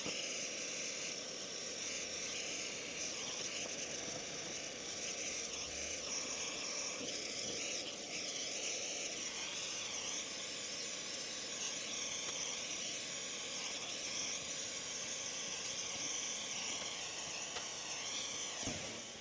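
Gas torch flame hissing steadily while it heats a crucible of scrap copper wire to melting.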